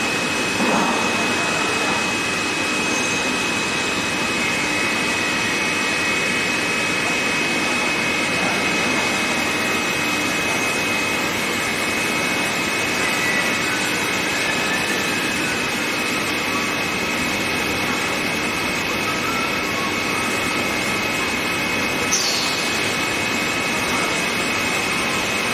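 Steady machine-shop noise from CNC vertical lathes running: a continuous even din with a steady high whine. A brief falling squeak about 22 seconds in.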